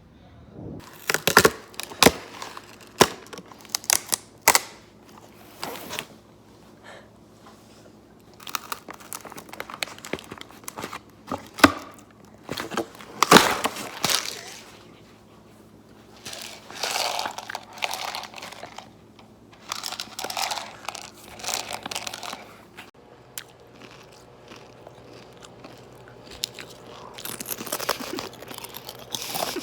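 Packaging being crinkled and torn in irregular bursts, with sharp crackles and quieter pauses between handlings.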